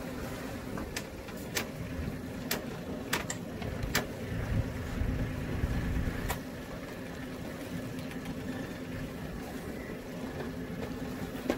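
Sailboat's inboard engine idling with a steady low hum, swelling briefly about halfway through. Several sharp knocks and clicks sound over it during the first half.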